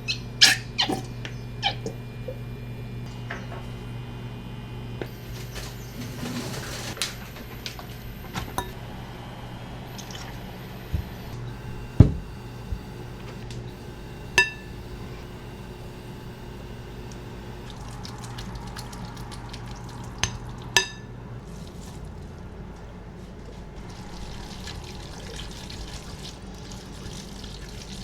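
Kitchen handling sounds: scattered clicks and knocks, a few with a short clinking ring, over a steady low hum that stops about two-thirds of the way through. Water runs as a hiss near the end.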